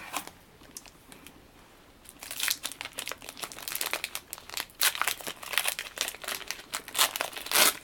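Foil wrapper of a Yu-Gi-Oh booster pack crinkling as it is handled, starting about two seconds in with irregular crackles after a quiet start.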